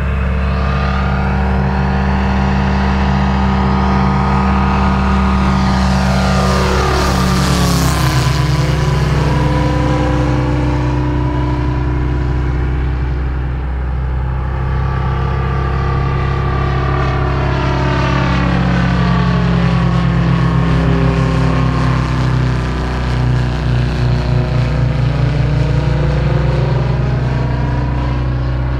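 Moki 400 cc five-cylinder radial engine of a 60%-scale RC Bücker Jungmeister biplane running steadily in flight, heard from a camera on the airframe. The sound flutters briefly about 23 seconds in.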